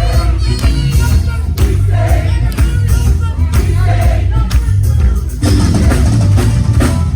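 Live gospel quartet music: band with heavy bass and drums playing, with voices singing over it.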